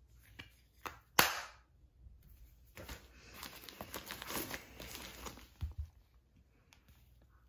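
A small hard case snapping shut with a sharp click about a second in, after a couple of lighter clicks; then plastic packaging crinkling and rustling for about three seconds, with a short knock near the end.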